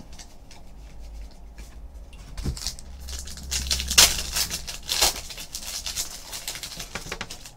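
Foil trading-card pack being crinkled and torn open by hand, with the rustle of cards being handled. The loudest crinkling comes about four and five seconds in.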